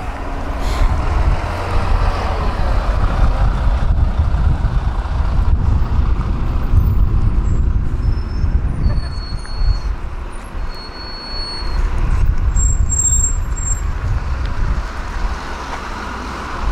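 Outdoor road ambience: wind buffeting the microphone in a steady low rumble, with road traffic passing. A few brief high whistling tones come in around the middle.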